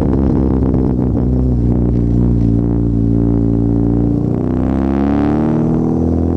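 Exhaust of a 2009 Chevy Cobalt SS's turbocharged 2.0-litre Ecotec four-cylinder, straight-piped with a muffler delete, heard at the tailpipe while driving: a loud, steady engine note with some crackle at first, dipping about four seconds in and then rising in pitch as the engine revs up.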